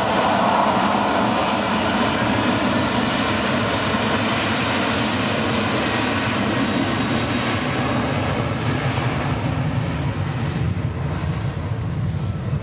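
Emirates Boeing 777-300ER's GE90 turbofan engines running loud and steady as the airliner taxis. A high whine rises in pitch over the first couple of seconds.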